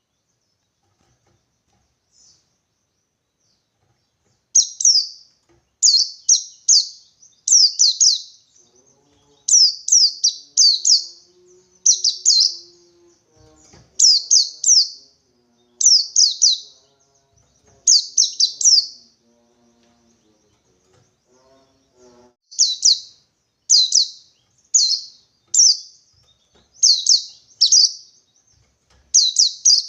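White-eye (pleci) singing the wild 'ngalas' 1-2-3 song: short, high, sharply falling chirps in clusters of two or three, repeated about once a second. The singing starts about four seconds in and breaks off for a few seconds about two-thirds of the way through.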